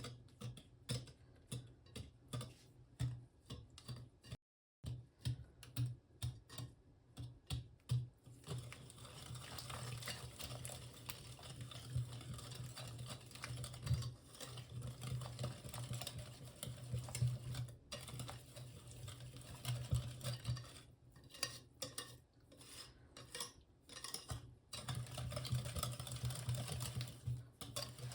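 Cake batter mixed by hand in a bowl: a utensil stirring, scraping and clinking against the bowl. Separate taps and clicks in the first several seconds and again a little before the end give way to long stretches of quick, continuous stirring strokes.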